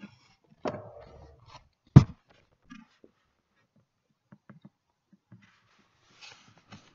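Handling noise from a handheld camera being moved around a banner: a knock, then a loud thump about two seconds in, followed by faint clicks and a brief rustle near the end.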